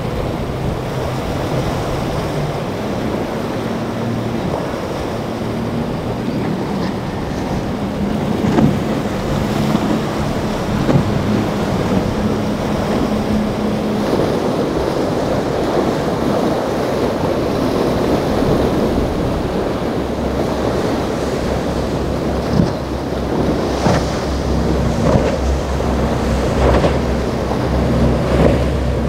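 Rough surf and wind buffeting the microphone, over the steady running of a Grady-White center-console boat's twin outboard motors as it pounds through the chop, with a few sharp splashes. A lower, steady engine drone sets in about two-thirds of the way through.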